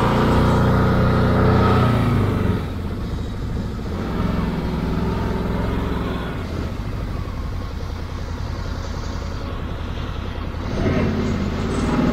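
Can-Am side-by-side engine running hard under load while it is stuck in deep, wet sand and tethered to a tow strap. It drops back suddenly about two and a half seconds in, runs lower, then picks up again near the end.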